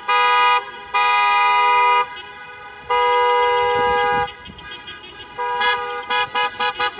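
Car horn honking: three long blasts in the first four seconds, then a run of quick short toots near the end.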